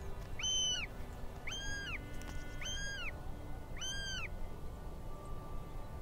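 Four high calls from a bird of prey, each about half a second long, rising then falling in pitch, a little over a second apart.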